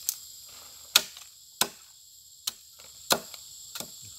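Machete (parang) blade striking into stony soil, about six sharp chops at irregular intervals. A steady high drone of crickets or other insects runs underneath.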